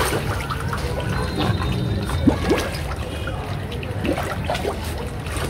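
Shallow pool water trickling and lapping with small splashes as two Rottweiler puppies move about in it.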